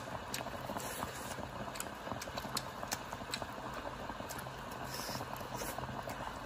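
Self-heating hotpot bubbling: a steady, dense patter of small bubbles popping in the hot broth, with scattered sharper clicks.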